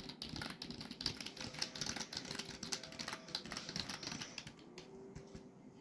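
Computer keyboard being typed on in a fast run of keystrokes that thins out to a few scattered key clicks about four and a half seconds in.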